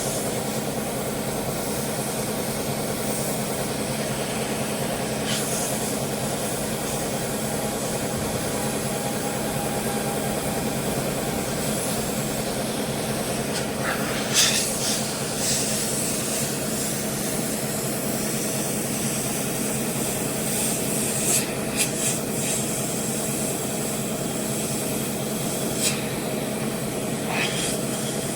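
Steady electric hum with a hiss from a plastic-welding tool running, broken by a few short scrapes or taps.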